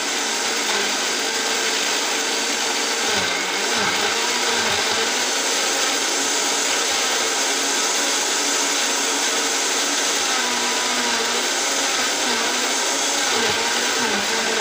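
Countertop blender with a glass jar running continuously, blending fruit and kefir into a smoothie, its motor pitch wavering slightly as the load shifts.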